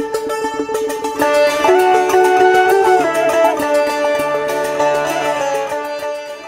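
Instrumental channel-intro music: a steady held drone, joined about a second in by a fuller layer of notes carrying a moving melody, then fading out near the end.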